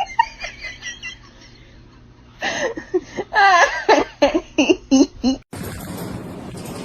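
A person giggling and laughing in quick runs of short bursts, with a lull in the middle. About five and a half seconds in, it cuts off abruptly to a steady hiss.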